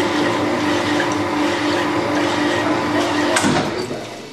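Sunnen rod-honing machine running with a regular pulsing hum, honing the big-end bore of a Ford Pinto connecting rod. There is a click about three and a half seconds in, after which the machine runs down.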